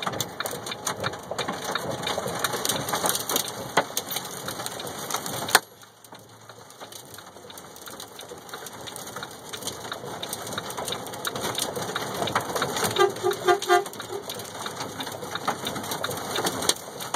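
Storm rain pelting a truck's windshield and cab during a tornado, heard from inside the cab as a dense rush with many sharp ticks against the glass. The noise drops suddenly about five and a half seconds in, then builds again. Near the end a short run of rapid beeps sounds.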